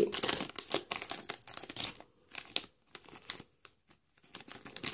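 A plastic blind-bag packet crinkling as it is torn open by hand: a dense crackle for about two seconds, then scattered crinkles with short pauses.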